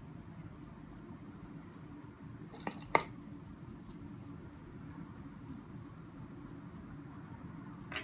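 Two sharp clicks of small hard objects knocking together about three seconds in, the second louder, over a low steady hum and faint light ticking.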